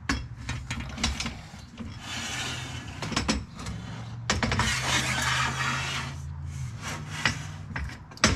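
A rigid solar panel set down on metal strut rails on a car's roof rack and slid into place: a series of knocks and clicks, with two longer scrapes of the panel frame dragging over the rails.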